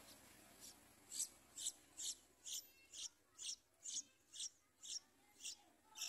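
Yellow-vented bulbul nestlings begging for food: a run of short, thin, high-pitched peeps, about two a second.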